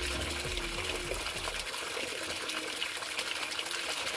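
Shallow stream flowing over rocks, a steady rushing of water, with a low rumble that stops about a second and a half in.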